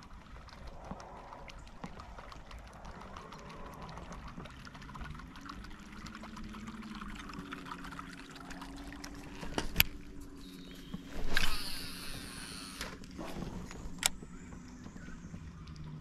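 Distant watercraft engine humming, its pitch slowly rising and falling. Over it come the sounds of casting a surface lure with a fishing reel: a sharp click about ten seconds in, a loud rushing hiss lasting about a second and a half shortly after, and another sharp click about fourteen seconds in.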